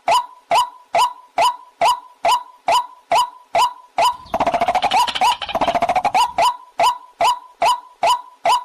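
Recorded waterhen call: a sharp knocking note repeated a little over twice a second. About four seconds in it breaks into two quick rattling trills that fall in pitch, then the repeated notes resume.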